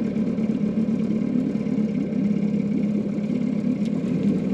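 Small outboard motor running steadily at low speed.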